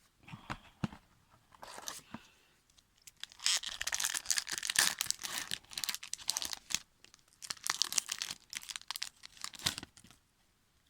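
Crinkly plastic-foil wrapper of a trading-card pack being torn open and crumpled, a dense run of crackling and ripping from about three and a half seconds in to near the end, with a few short crackles before it.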